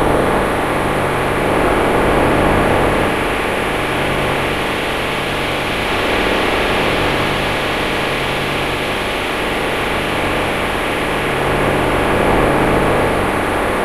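Steady electronic drone resynthesized from a female voice's spectrogram by phase-vocoder spectral processing in Max/MSP, its reading position held at one spot so a single slice of the voice sounds on continuously. Dense and engine-like, with a fast even pulsing in the low end and gentle swells in loudness.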